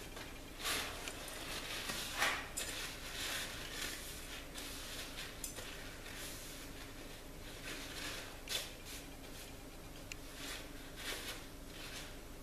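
Paper towel crinkling and rustling as gloved hands wipe it along a steel knife blade, in irregular soft strokes, the loudest about two seconds in.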